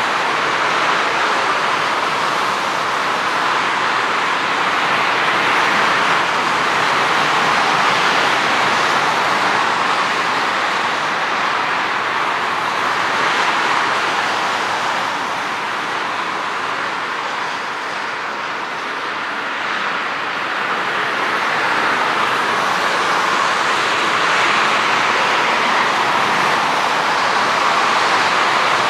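Airbus A300-600 freighter's twin jet engines heard from a distance: a steady rushing noise as it approaches, touches down and rolls along the runway, dipping a little about two-thirds of the way through and swelling again near the end.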